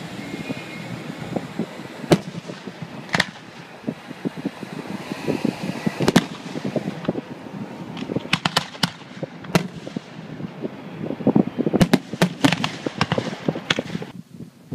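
Fireworks going off: repeated sharp cracks and pops, coming thickest about eight seconds in and again near the end.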